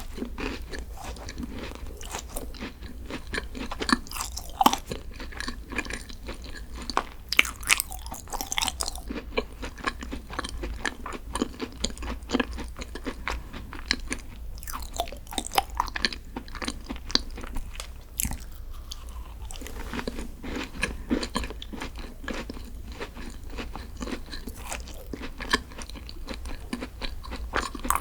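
A person eating green tea desserts close to the microphone: many short bites and chewing sounds, with crackles across the range.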